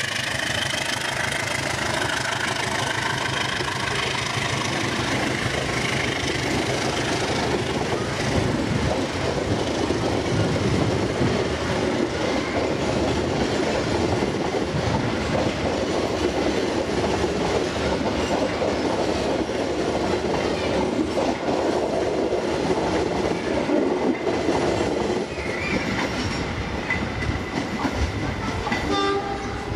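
Diesel-hauled passenger train passing close by: the locomotive's engine fades in the first few seconds, then the coaches roll past with steady wheel noise and a clickety-clack over the rail joints.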